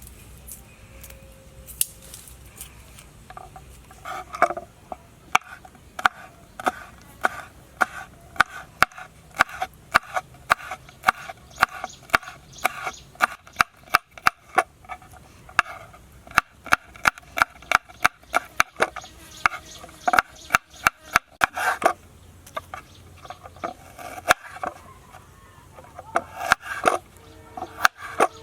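Knife chopping on a wooden cutting board: quick, even knocks about two to three a second, with a pause in the chopping near the end.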